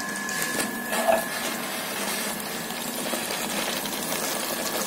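Yogurt-marinated mutton frying in oil in an aluminium pressure cooker pot on high flame, with a steady sizzling.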